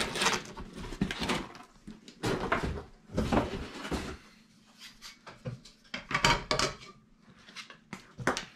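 Nokta Makro Simplex+ metal detector's shaft sections and search coil being lifted out of a cardboard box and set down on a table: irregular knocks, clacks and cardboard rustling, with short quiet gaps between them.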